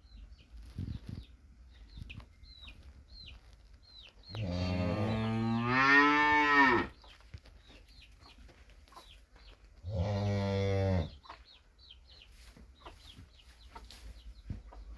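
Cattle mooing twice: a long moo about four seconds in that rises and then falls in pitch, and a shorter one of about a second near ten seconds in. Chicks peep steadily underneath in short, high chirps.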